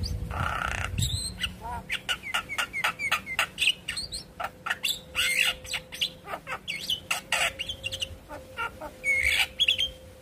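Javan myna singing: a harsh squawk about a second long, then a fast chatter of short clicks and whistled notes, ending in a warbled phrase near the end.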